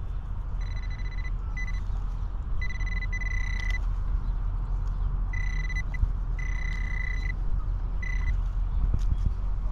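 Metal detector sounding a single high-pitched tone in about seven short on-off beeps, each from a fraction of a second to about a second long, as it is held over a target in the dug hole, one the detectorists take for a bottle cap. A steady low rumble runs underneath.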